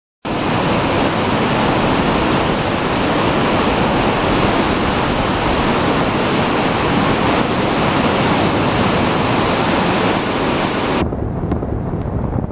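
Bow wave of a large ship rushing and foaming along the hull: a loud, steady wash of water. About eleven seconds in it cuts abruptly to a quieter, lower rumble of wind buffeting the microphone over churning water.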